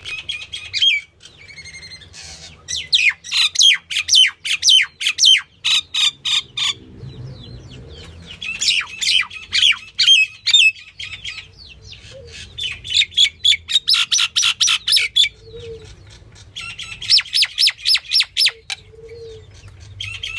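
Small birds chirping in quick bouts of short, high, downward-sliding notes, several a second, with brief pauses between the bouts.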